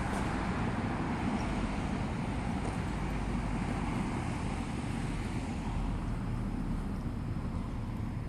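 Steady outdoor background noise: a low rumble with a hiss above it, unbroken throughout.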